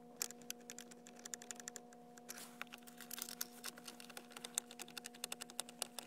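Screwdriver tightening the Torx bolts under a steering column, making quick irregular runs of light clicks over a faint steady hum.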